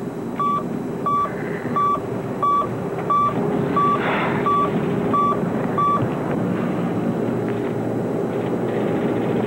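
Computer terminal giving a row of short electronic beeps at one steady pitch, about one and a half a second, stopping about six seconds in; an alert that data is being sent out over the network. A steady low hum runs underneath.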